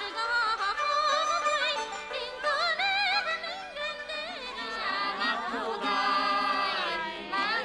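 High-pitched singing with a wide, wavering vibrato, heard as part of a music track.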